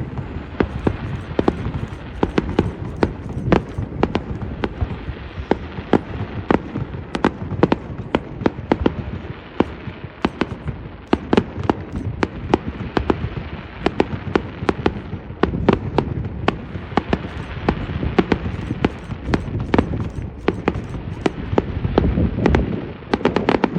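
Fireworks going off: a rapid, irregular run of sharp bangs and cracks, several a second, over a steady low rumble.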